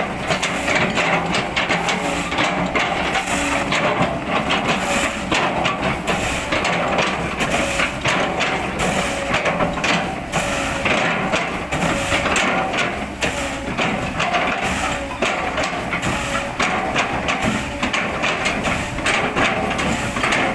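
Kobelco excavator running under load while its bucket chops and crushes oil palm trunk, with rapid, constant cracking and knocking of the wood over the engine.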